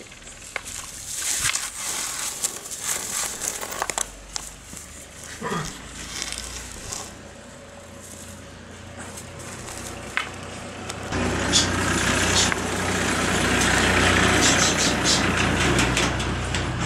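Straw broom bristles rustling and crackling as an English bulldog puppy bites and tugs at the broom head, with scattered clicks. From about eleven seconds in, a steady rushing noise rises and becomes the loudest sound.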